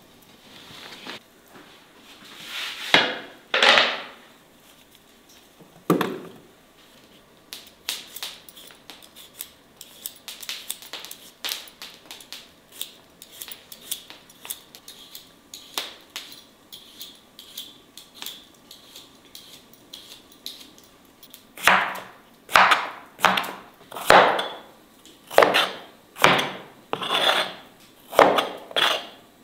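Crinkle-cut knife cutting through raw potatoes and striking a wooden chopping board: about a dozen cuts in a steady rhythm, each a loud thud, in the last several seconds. Before that come lighter scattered clicks and knocks of kitchen handling, with two louder strokes about three seconds in.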